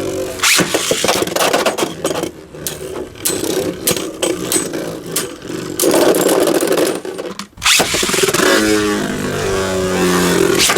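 Beyblade Burst spinning tops whirring and grinding in the stadium, with frequent sharp clacks as they hit. The noise drops away briefly twice, about two seconds in and again around seven and a half seconds.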